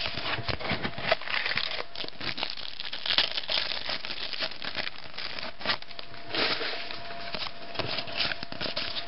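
Trading-card pack wrapper crinkling and tearing as it is opened by hand, with a run of small crackles and sharper rustles, followed by the cards inside being handled and slid against each other.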